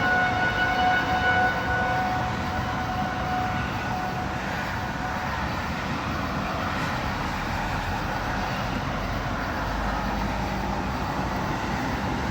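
Outdoor tornado warning siren sounding a steady held tone that fades away after about four seconds, over a constant rushing background noise.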